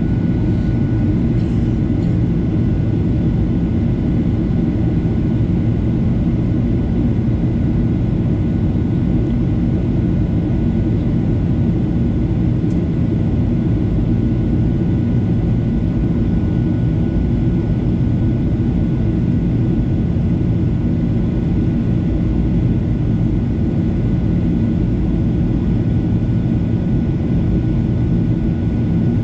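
Steady cabin noise of a Boeing 737-800 descending, heard from a seat beside the wing: the deep, even roar of its CFM56 jet engines and the airflow, with a faint high steady whine.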